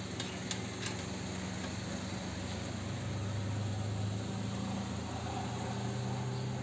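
Car engine idling with a steady low hum that grows a little louder midway, and a few light clicks near the start.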